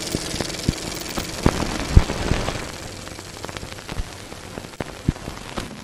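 Sound effect of a channel logo intro: a crackling static hiss with irregular pops and clicks, slowly fading.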